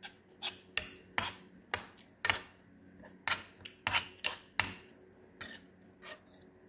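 Metal spoon clinking and scraping against a ceramic plate as it mixes and scoops rice, about two short strokes a second, growing fainter near the end.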